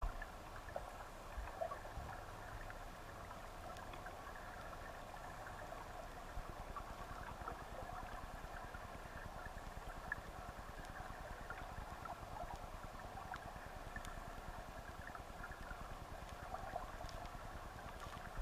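Flowing creek water heard underwater: a steady, muffled rush with a low rumble and scattered faint ticks and crackles from the turbulent current and bubbles.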